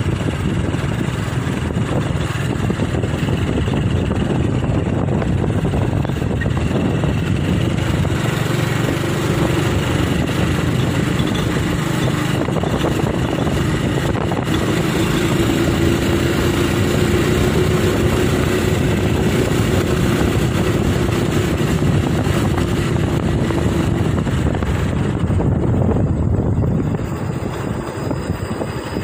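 Motor vehicle engine running steadily on the move, with road and wind noise; the engine note is clearest through the middle and the sound eases off a little near the end.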